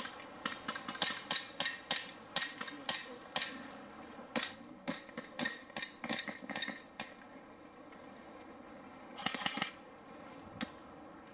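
Airsoft guns firing: a run of sharp, irregular snapping shots for about seven seconds, then a short rapid burst about nine seconds in and a single shot after it.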